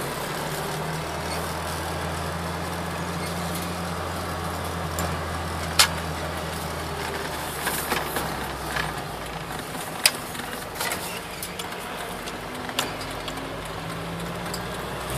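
Mitsubishi 4G63 SOHC 8-valve four-cylinder engine, fed by a Weber 32/36 DGV carburettor, running steadily at about 2,000 rpm under way, heard from inside the van's cabin over road noise. Its low drone eases about nine seconds in, and there are three sharp knocks.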